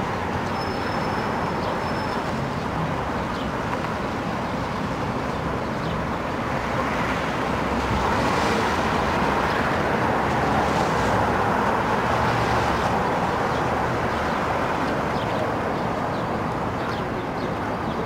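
Steady city street traffic noise, swelling for a few seconds in the middle as if a vehicle passes.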